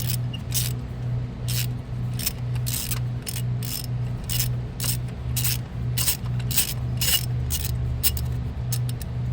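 A stuck ignition coil's rubber boot squeaking as it is twisted and worked loose from the spark plug well, in many short, quick squeaks and scrapes, over a low hum that pulses about twice a second.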